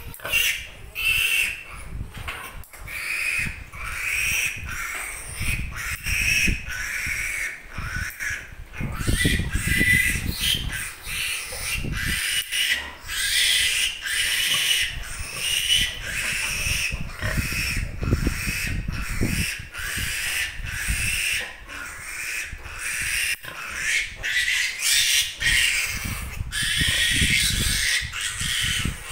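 A piglet squealing over and over while it is held and handled, its high, wavering cries following one another throughout.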